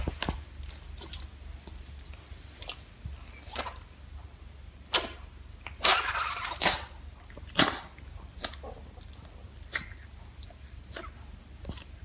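A small dog sneezing over and over: a string of short, sharp nasal bursts, with a longer, louder one about six seconds in.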